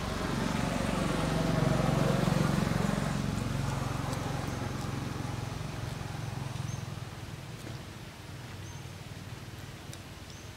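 A motor vehicle passing by: a rumble that swells over the first couple of seconds, then slowly fades away.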